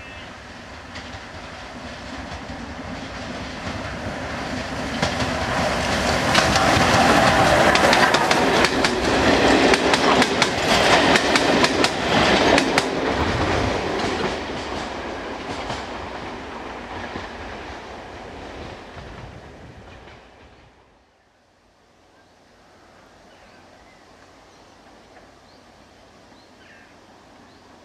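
GNR N2 class 0-6-2 tank steam locomotive No. 1744 and its coaches passing close by: the sound builds up, the wheels clatter over the rail joints as the carriages go past, then it fades away. About two-thirds of the way in it drops suddenly to a faint distant background.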